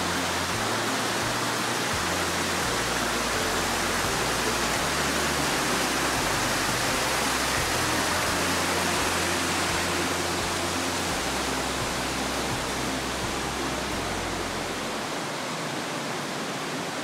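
Steady rush of water from a cave's underground river, an even hiss without breaks.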